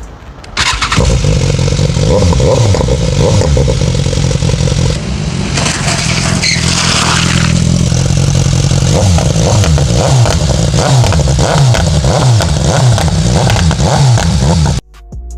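BMW S1000R's inline-four engine revving loudly through its exhaust, the throttle blipped again and again so the pitch keeps rising and falling. It starts sharply about a second in and cuts off abruptly near the end.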